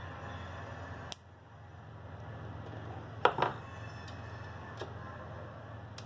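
Hand tools and small parts handled on a wooden workbench: light clicks, and a sharp double clack about three seconds in as a pair of pliers is laid down on the bench, over a steady low hum.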